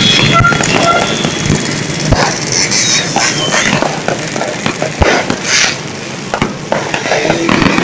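Fireworks going off: a string of sharp bangs and pops at irregular intervals over a busy background of crowd and street noise, with short horn toots in the first second.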